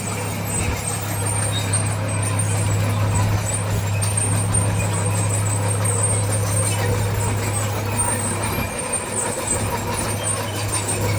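Diesel engine of heavy earthmoving machinery running steadily under load, a constant low drone.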